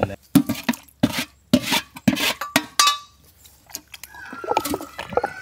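Stone pestle grinding wet tomato-and-onion masala in a stone grinding mortar: a quick, irregular run of wet knocks and squelches through the first three seconds. A steady high tone comes in near the end.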